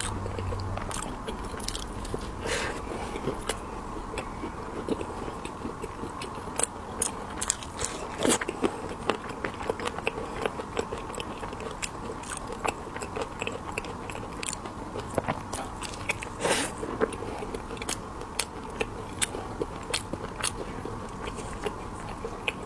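Close-miked eating of candied haw: irregular sharp crunches as the hard sugar shell breaks, between stretches of chewing.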